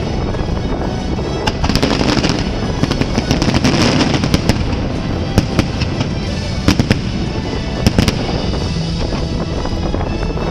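Aerial fireworks going off: sharp bangs and crackling over a continuous rumble, with several bangs close together about two seconds in and again around seven to eight seconds. Music plays underneath.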